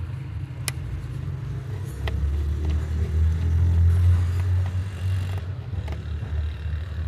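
Engine running steadily, its low rumble swelling from about two seconds in and easing again after about five, with a few sharp ticks over it.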